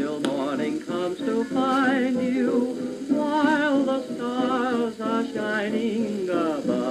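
Dance band music playing from a shellac 78 rpm record on a suitcase record player with a flip stylus cartridge. It is a melodic passage with a wavering vibrato line over the band.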